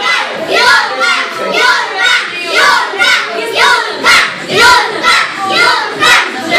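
A group of children shouting and calling out from the sidelines, with several voices overlapping in a string of short, loud calls.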